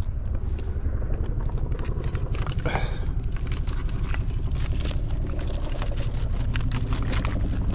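Clicks and rustling of a fish and a mesh keepnet being handled, its rope pulled through the hands, over a steady low rumble.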